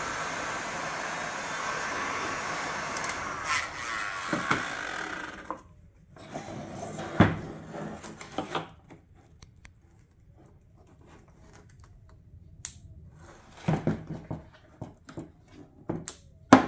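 Handheld heat gun blowing steadily as it warms the headlight's soft lens sealant, switched off about five seconds in. Then a small screwdriver prying at the lens edge and plastic headlight clips being handled: scattered sharp clicks and short scrapes, the loudest click about seven seconds in.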